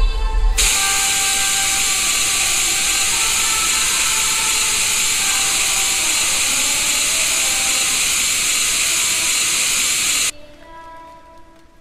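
Television static: a loud, steady hiss of white noise that starts abruptly about half a second in and cuts off suddenly near the end, leaving faint music that fades away.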